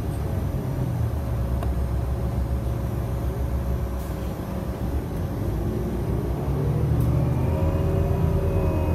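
City bus in motion, heard from inside the passenger cabin: a steady low engine and road rumble, joined about seven seconds in by a rising whine as the bus picks up speed.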